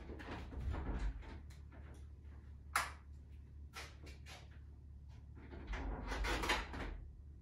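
Workshop light switch clicking off with one sharp snap about three seconds in, amid rustling and small knocks at a door. Near the end comes the louder rattle and knock of the door being pulled shut, all over a low steady hum.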